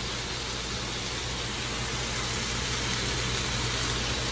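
Marinated steak sizzling steadily as it sears over high heat in a stainless steel skillet, with a low steady hum underneath.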